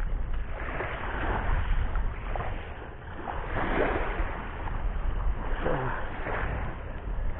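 Sea surf washing onto the shore, with wind rumbling on the microphone. The wash swells up about a second in, again around four seconds in, and near six seconds.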